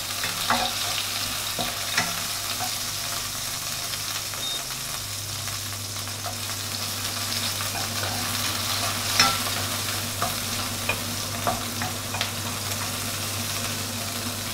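Shrimp heads sizzling as they fry in hot oil in a coated wok, their fat rendering into the oil, while a wooden spatula stirs and scrapes them around the pan. Scattered sharp taps and pops, the loudest about nine seconds in, over a low steady hum.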